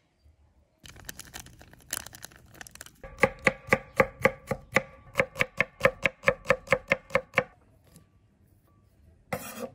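Chef's knife chopping garlic cloves on a bamboo cutting board: quick light cuts at first, then a steady run of sharp knocks about four to five a second. A short scrape near the end.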